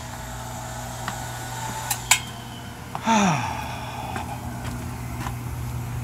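Oil-fired hot air furnace running: its burner and blower give a steady low hum. Two light clicks come about two seconds in, and a short sigh-like voice falls in pitch about three seconds in.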